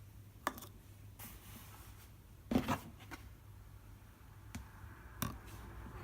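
Whirlpool washing machine running a synthetic 60° cycle: a low steady hum with several scattered clicks and knocks, the loudest about two and a half seconds in.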